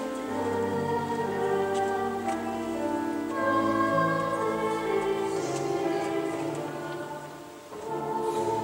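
Children's choir singing a slow piece in long held notes; a phrase ends and the level dips briefly near the end before the next phrase comes in.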